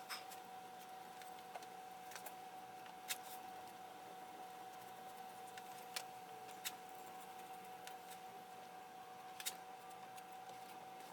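Faint, scattered light clicks and taps from tools or parts being handled at the open engine, about half a dozen spread unevenly, over a faint steady hum.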